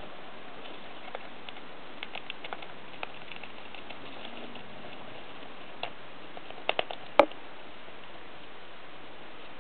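Hamster rummaging at a clingfilm tube in wood-shaving bedding: faint scattered rustles and small clicks, then a quick cluster of sharper clicks about seven seconds in, the last one the loudest.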